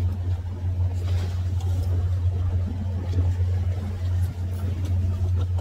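A fishing boat's engine running steadily, a constant low hum, with rain falling.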